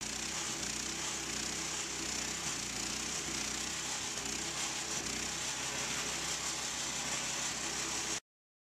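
Forrest King walk-behind gas stump grinder running under load, its engine humming steadily while the cutter wheel grinds into a black walnut stump with a steady hiss of flying chips. The sound cuts off suddenly near the end.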